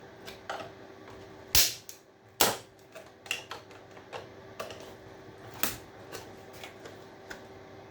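Metal parts of a scrap electrical appliance clicking, snapping and knocking as they are pried and worked apart by hand, with two loud sharp knocks about a second and a half and two and a half seconds in. A faint steady hum runs underneath.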